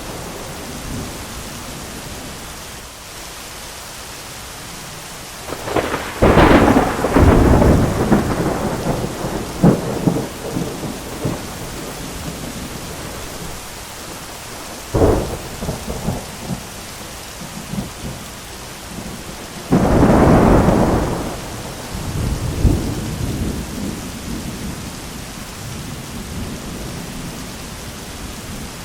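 Steady heavy rain with three loud thunderclaps: one about six seconds in that rumbles on for several seconds, a short sharp crack around the middle, and another big clap a few seconds later that rolls off into rumbling.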